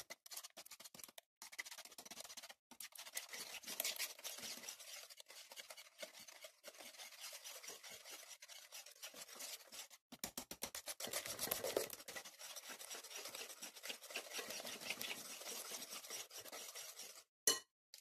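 Wire whisk beating a liquid egg, sugar and oil mixture in a ceramic bowl: rapid, rhythmic scraping and clicking of the wires against the bowl, with a few short pauses. It stops shortly before the end.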